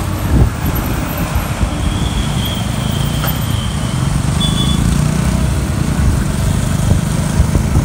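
Motorcycle engines and traffic noise heard from a moving motorcycle in city traffic, with a steady low rumble of wind on the microphone.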